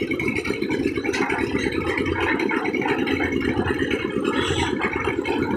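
Engine-driven concrete mixer machine running steadily: a dense low engine note with a thin, steady high whine over it.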